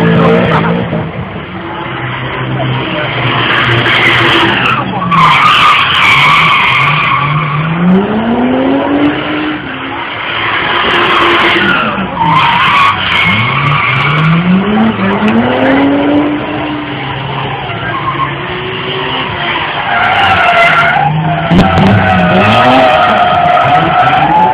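A car drifting and spinning its tyres: the engine revs up again and again in rising sweeps while the tyres squeal and skid on the tarmac.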